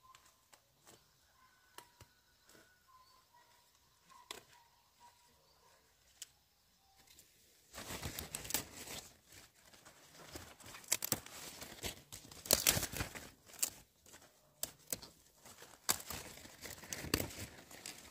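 Leaves and stems crackling and tearing, like leafy vegetables being picked and handled by hand. It starts suddenly about eight seconds in after a quiet stretch of faint ticks and a few faint thin chirps, and goes on as a dense run of sharp snaps and rustles.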